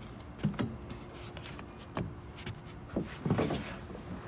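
Knocks and scuffs of a child climbing on a playground structure, picked up through the structure the phone rests on: a handful of short, irregular thumps and shuffles.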